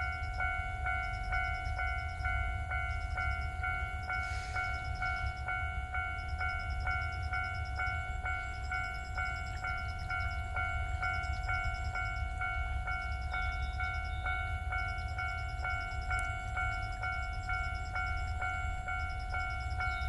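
Japanese level-crossing warning bell ringing steadily while the crossing is active, an even ringing tone at about two strokes a second, over a steady low rumble.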